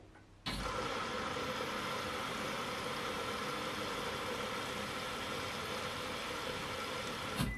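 Siemens front-loading washing machine running with a load of dish towels, its drum turning with a steady mechanical hum and hiss, making a big noise. The sound starts suddenly about half a second in and stops suddenly near the end.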